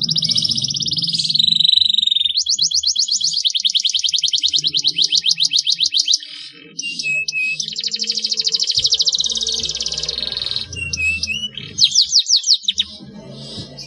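Canary singing: long rolling trills of rapid repeated notes, broken by brief pauses and a few short whistled notes, with a burst of loud sweeping notes near the end.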